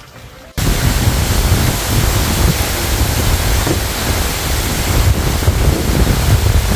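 Loud, steady rushing noise with a fluctuating low rumble, cutting in suddenly about half a second in.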